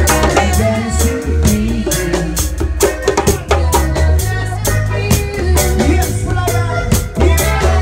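Live reggae band playing: drum kit with a steady beat and busy cymbals, a deep bass guitar line, and saxophone.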